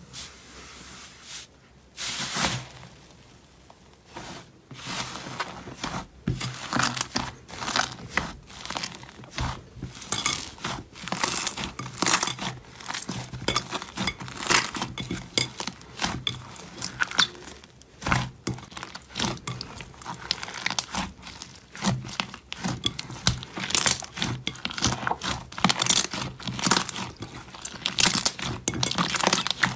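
Thick fluffy slime kneaded and squeezed by hand: a dense run of crackling and popping with tearing sounds as the slime is pulled apart and pressed together. The sound starts about two seconds in.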